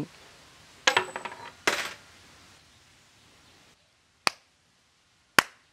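Coins tossed into a shrine offering box, clinking and rattling with a short metallic ring twice, about a second in and again just after. Near the end come two single sharp cracks about a second apart.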